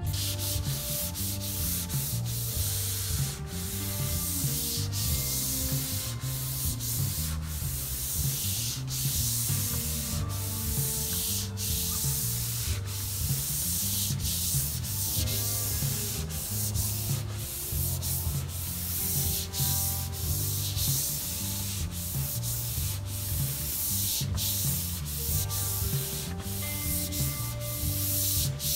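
A hand-held pad rubbed back and forth over a wooden tabletop, making a steady scrubbing hiss in repeated strokes with brief breaks between them.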